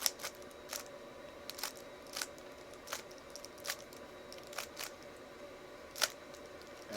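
3x3 Rubik's cube being turned by hand: a string of quick, irregular plastic clicks as the layers snap round, the loudest about six seconds in.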